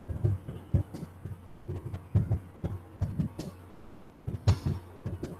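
Computer keyboard being typed on: irregular, dull key taps, several a second, over a faint steady low hum.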